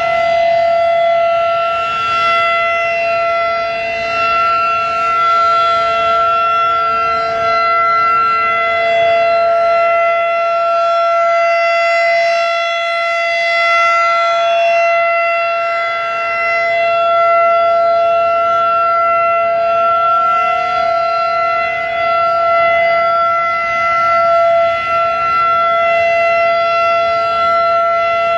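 Federal Signal 2001-DC outdoor warning siren sounding the steady alert signal of a scheduled siren test, a held, unwavering tone whose loudness swells and eases gently as the rotating horn sweeps past. A more distant Federal Signal 2001-SRN siren sounds along with it.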